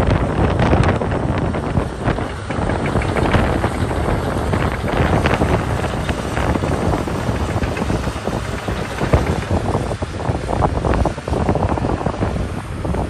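Komatsu PC210 LC hydraulic excavator's diesel engine running as the upper structure slews round, heavily buffeted by wind on the microphone.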